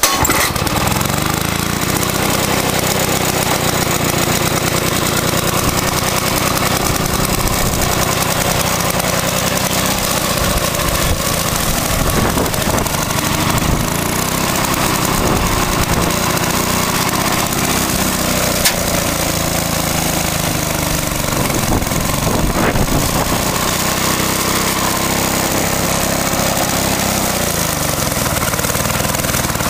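Victa two-stroke lawnmower engine catching from its wind-up starter and running steadily, its speed wavering up and down now and then.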